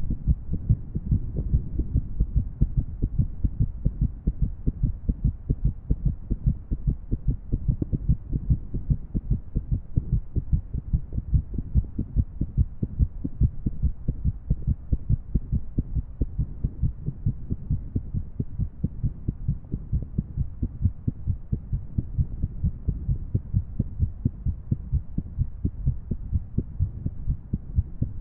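A woman's heartbeat: low lub-dub thuds in quick succession with an irregular rhythm.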